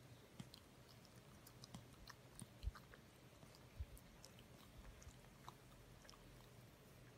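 Near silence: room tone with faint scattered small clicks and a couple of soft low thumps.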